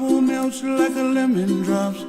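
Music: a voice singing a melody over plucked-string accompaniment.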